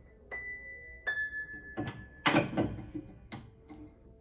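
Grand piano strings ringing in several short high notes as a newly installed string is tightened with a tuning hammer, with a louder knock about two seconds in and a lower note ringing near the end.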